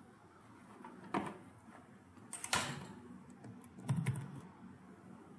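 Clicks of a computer mouse and keyboard keystrokes. There are single sharp clicks about a second in and a double click around two and a half seconds, then a quick cluster of keystrokes around four seconds in.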